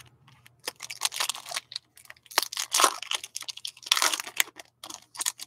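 Foil trading-card packs and cards being handled by hand: a run of short crinkling and rustling bursts mixed with quick clicks.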